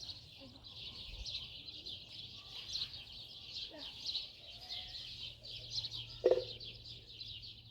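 Steady dense high chirping of birds, with a few faint low calls and one short, sharp, loud sound about six seconds in.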